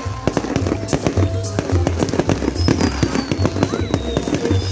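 Fireworks bursting in quick succession, many sharp bangs with crackling, over loud music with a heavy bass.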